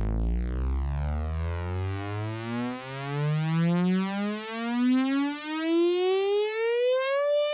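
Synthesized rising sweep: a low electronic tone glides steadily upward in pitch for several seconds, the build-up of an intro music track, and cuts off at the very end.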